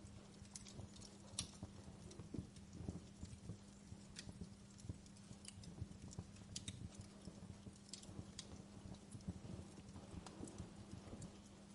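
Wood fire crackling: faint, irregular pops and snaps from burning logs over a low rumble, with a steady low hum underneath.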